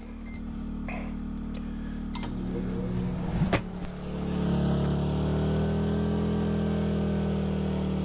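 A microwave keypad beeps and the oven starts with a hum, with a few clicks and a sharp knock about three and a half seconds in. Then the Smarter Tools inverter generator's Yamaha MZ80 engine picks up a little from idle and holds there under the microwave's load.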